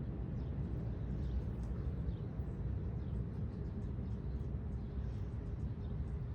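Outdoor background: a steady low rumble, like distant traffic or wind, with faint short bird chirps scattered through it.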